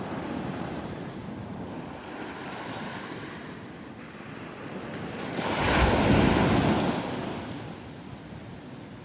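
Pacific Ocean surf washing on the shore. About five and a half seconds in, a wave breaks loudly and then washes out.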